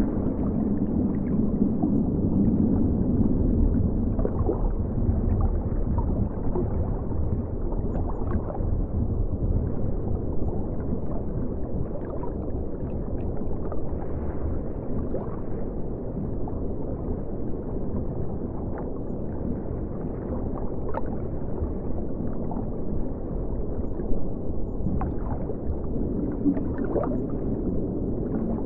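River water flowing, heard through a camera set underwater: a steady, muffled low rush and gurgle with faint scattered ticks and clicks.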